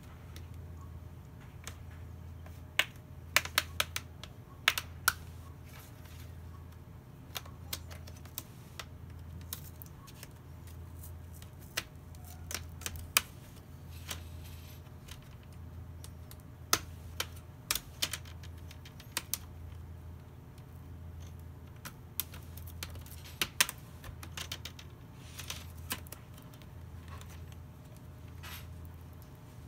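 Plastic screen bezel of a Dell Inspiron laptop being pried off the lid with a plastic pry tool: irregular sharp clicks and snaps, some in quick clusters, as its clips let go. A low hum pulses steadily underneath.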